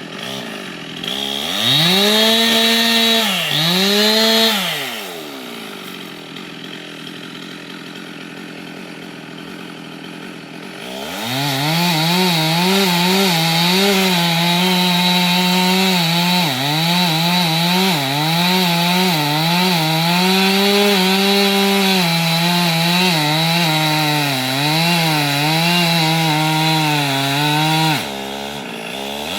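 Two-stroke chainsaw revved twice, then dropping to idle for several seconds. About a third of the way in it goes to full throttle and stays there, its pitch dipping and wavering under load as it cuts into wood. It falls back to idle briefly near the end.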